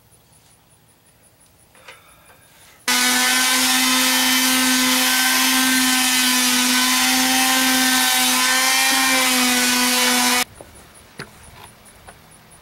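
Handheld electric sander on a plywood panel: it starts up about three seconds in, runs at a steady pitch for about seven seconds, then cuts off suddenly. Faint clicks follow.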